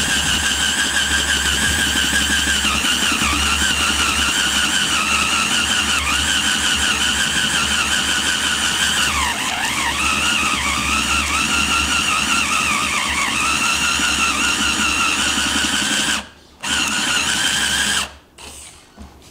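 PRIMERO DDR-70AZA cordless drill-driver running a 40 mm Forstner bit into wood with a steady motor whine. Its pitch dips for a moment about halfway through. Near the end it cuts out briefly, runs again for about a second, and stops.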